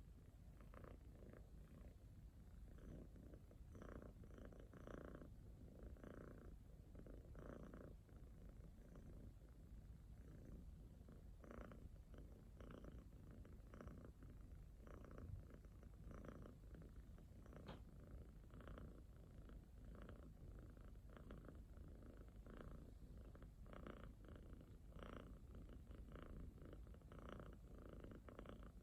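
Domestic cat purring softly and steadily, the sound swelling in a regular pulse with each breath in and out while the cat drowses toward sleep.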